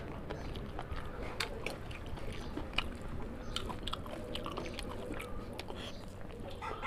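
A person chewing and biting a mouthful of curry and rice, with irregular sharp wet mouth clicks and smacks.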